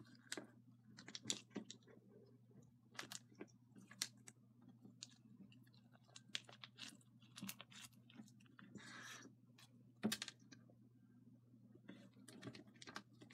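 Crunchy slime heavily loaded with small tube-shaped plastic beads being squeezed and kneaded by hand: faint, irregular clicking and crackling as the beads press and rub against each other.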